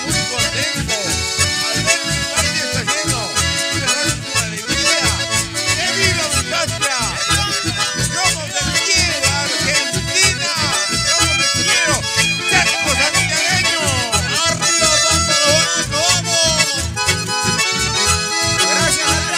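Live band music led by several accordions playing the melody, over strummed acoustic guitar keeping a steady, even beat.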